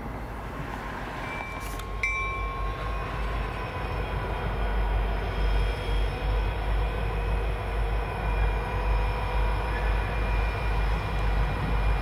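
EMD SD50-2 diesel locomotives running as they pull a cut of tank cars slowly through a rail yard: a steady low engine rumble with a faint held whine above it. It gets louder and closer about two seconds in.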